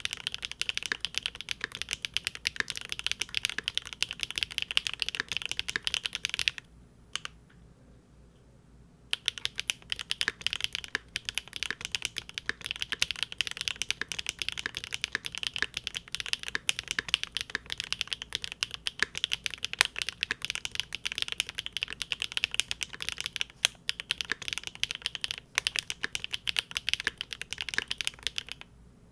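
Fast typing on a Linworks Big Whale custom mechanical keyboard with GEON Raw Zero switches on a polycarbonate plate: a dense, steady stream of keystroke clacks. The typing stops for about two seconds roughly a quarter of the way in, then carries on.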